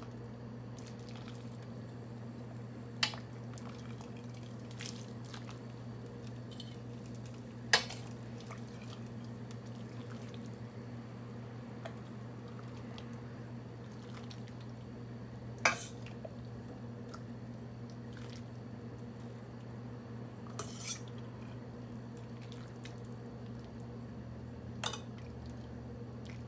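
Metal soup ladle clinking sharply against a stainless steel pot and bowl about five times, spread out, as soup is ladled, with soft dripping and pouring of broth between. A steady low hum runs underneath.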